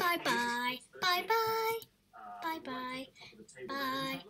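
A girl singing a string of drawn-out 'bye's in a sing-song voice, held notes with short gaps between them.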